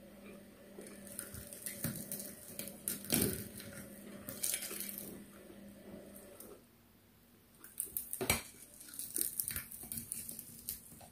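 Light clinks, knocks and rustling of a plate and glass bowl as food is handled by hand during a meal. A steady low hum underneath stops about two-thirds of the way through.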